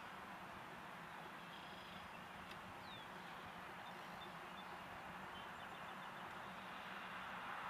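A few faint bird chirps and a short trill now and then over a steady background hiss.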